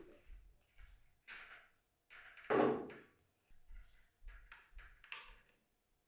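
Kitchen items being set down and slid on a wooden tabletop one after another: a string of light knocks and taps, the loudest about two and a half seconds in.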